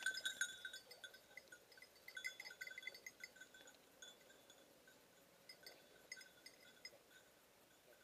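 Small bell on a hunting dog's collar jingling irregularly as the dog moves through the brush. It is loudest in the first second, then lighter and more scattered.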